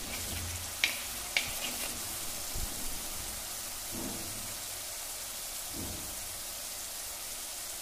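Garlic paste sizzling in hot oil in a clay kadhai, a steady hiss, with two light clicks of a steel spoon against the pot about a second in.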